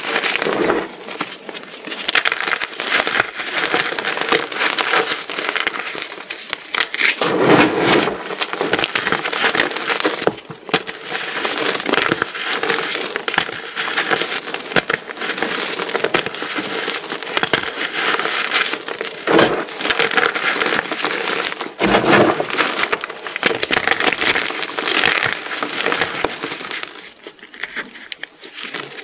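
Many small pyramids of reformed gym chalk being crushed together: a dense, continuous crunching and crackling of chalk breaking and crumbling. A few heavier crunches stand out, and it thins out near the end.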